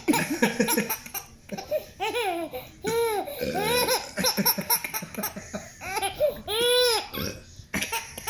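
Baby laughing in a string of high-pitched bursts, each rising and falling in pitch, with a longer one about six and a half seconds in.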